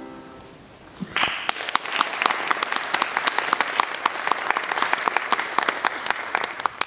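The last chord of a Bösendorfer grand piano fades out. About a second in, an audience starts applauding and keeps clapping steadily to the end.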